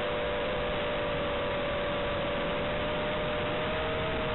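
FPV quadcopter's motors whining as two close, steady tones that waver slightly in pitch with throttle, heard from on board over a constant hiss.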